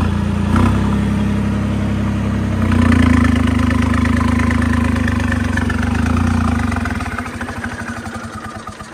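Tractor diesel engine revved up from idle, held at high revs for several seconds and let fall back toward idle about seven seconds in. The throttle is worked to blow smoke out of the upright exhaust stack.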